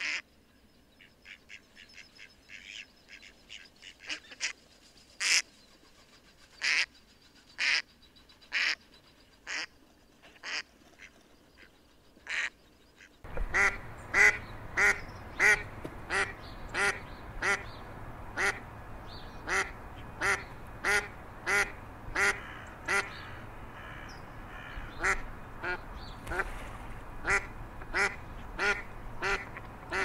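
Mallard quacking: a long run of short quacks, about one a second at first. About halfway through, a steady background hiss comes in abruptly, and the quacks become louder and come more quickly.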